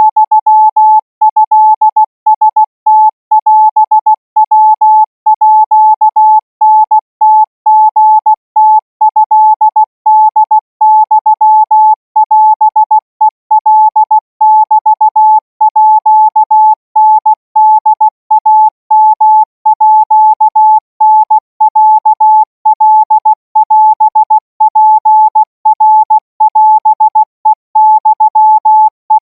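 Morse code sent as a single steady-pitched practice tone, keyed on and off in short dots and longer dashes with gaps between characters, at about 20 words per minute, for Thai radio-signal training.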